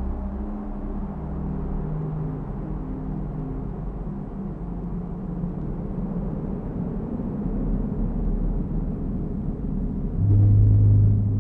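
Dark, droning ambient soundtrack: a low rumble under held deep notes that shift in pitch now and then, with a louder deep note swelling in near the end.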